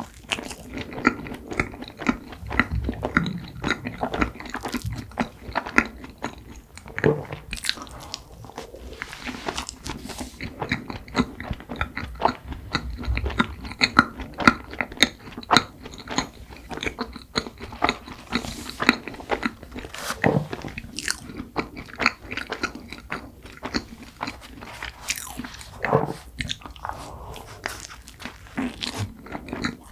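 Close-miked eating of cream-filled red bean buns: bites into soft bread and steady chewing, full of small irregular mouth clicks.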